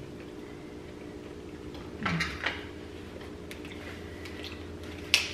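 Small clicks and cracks of eating steamed lobster at the table: lobster shell being broken and utensils knocking on plates, with a crackly rustle about two seconds in and a sharp click near the end, over a faint steady hum.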